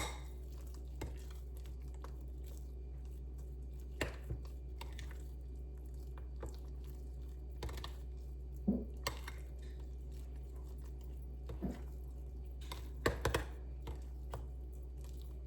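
Spoon mixing mashed chickpeas with mayonnaise in a bowl: scattered soft clicks and scrapes of the spoon against the bowl, over a steady low hum.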